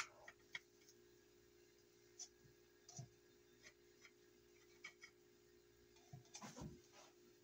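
Near silence with faint, irregular light ticks and scrapes of a small paintbrush working finish onto wooden revolver grips, and a slightly louder cluster of handling knocks about six and a half seconds in. A faint steady hum runs underneath.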